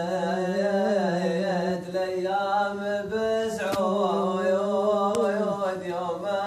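A man singing an Omani shilla, unaccompanied chanted Bedouin poetry, in long drawn-out notes that waver and bend.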